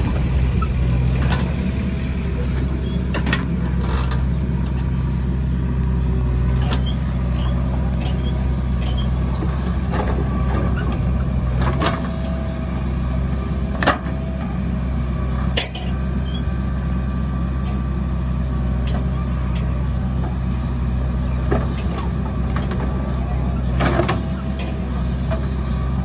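Diesel engine of a JCB 3DX backhoe loader running steadily under load as it dumps soil into a tractor trolley and digs again, with a few sharp knocks from the bucket and arm.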